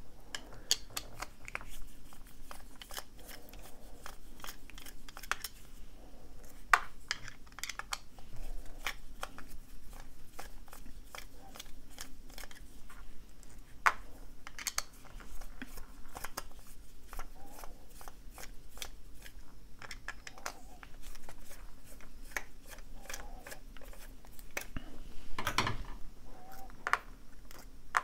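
Small Phillips screws being backed out of a padlock's metal housing with a screwdriver: irregular light metallic clicks and ticks, now and then a louder tap.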